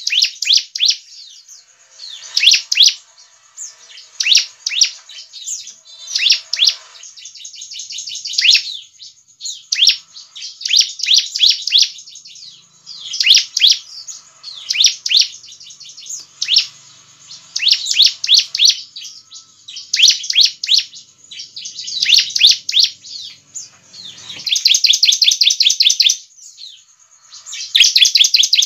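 Bar-winged prinia (ciblek) calling: bursts of rapid, sharp, high chirps every second or two, with one longer fast trill about 24 seconds in.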